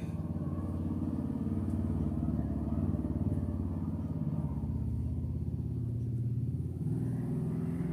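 A motor vehicle engine running steadily in the background, a low hum that shifts slightly in pitch.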